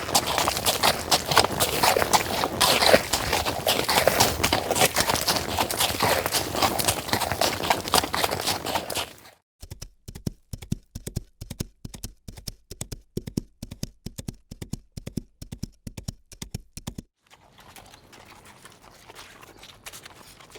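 Horse hooves clip-clopping. First comes a dense, loud run of hoofbeats over a noisy background. An abrupt cut at about nine seconds leads to clean, separate hoofbeats on a hard surface, about four a second, and another cut near the end leads to a much fainter, noisy track.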